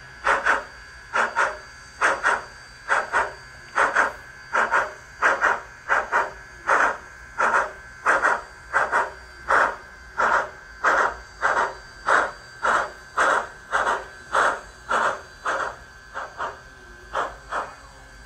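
Steam-locomotive chuffing from the sound decoder of an HO-scale brass Southern Pacific AC-12 cab-forward model, played through its small onboard speaker. The chuffs come at an even pace of about two a second, often in uneven pairs, over a faint steady high tone.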